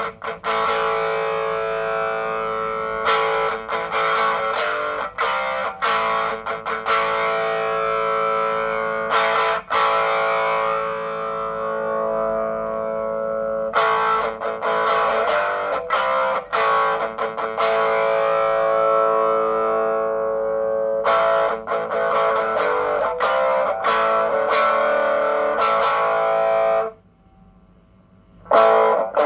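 Electric guitar played through a Joyo British Sound overdrive pedal with its mid control turned fully down. Chords are struck and left to ring every few seconds, with quicker picked notes between them, and there is a pause of about a second and a half near the end.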